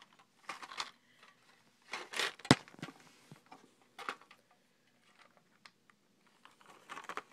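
A small gift box and a plastic-and-foil package being handled, rustling and crinkling in several short spells. About two and a half seconds in there is one sharp knock, the loudest sound, and a smaller click follows a little later.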